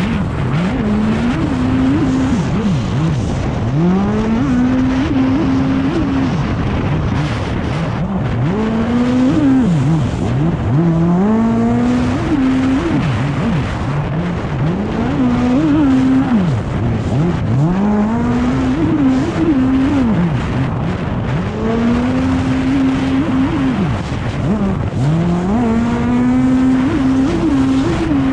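Racing stand-up jet ski's Kawasaki SX-R 160 engine at full throttle, its note climbing and holding, then dropping sharply and climbing again roughly every two to three seconds as the ski turns and leaves and lands in the chop, with a constant rush of spray and wind.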